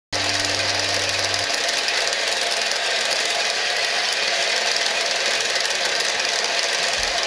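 Bandsaw cutting into a pattern-welded steel blade: a steady, even hiss that starts abruptly, with a low hum during the first second and a half.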